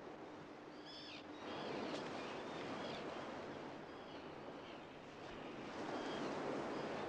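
Low surf washing onto a beach in even rushes that swell about one and a half seconds in and again near the end, with short high bird calls over it during the first few seconds.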